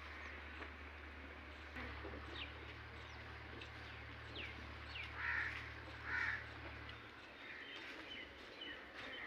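Birds calling outdoors: scattered short falling chirps, with two louder, harsher calls about five and six seconds in, over a low hum that stops about two-thirds of the way through.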